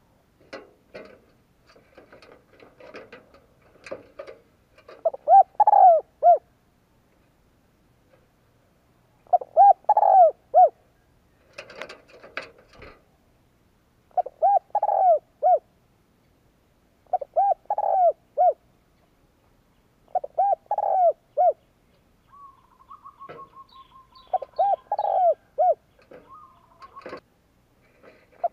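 Spotted dove cooing: six loud phrases of about four short, arched coo notes, repeated every three to four seconds. Softer chirps and clicks come between them, and a brief rattling trill about three-quarters of the way through.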